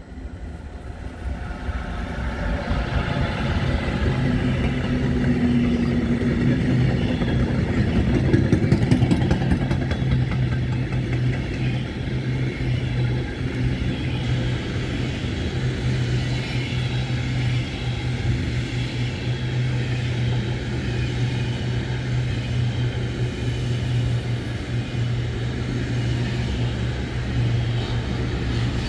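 A Siemens Vectron electric locomotive runs past hauling a long intermodal freight train of pocket wagons loaded with truck trailers. It swells over the first few seconds as it arrives, gives a short hum about five seconds in as the locomotive goes by, then settles into the steady rumble of the wagons rolling past on the rails.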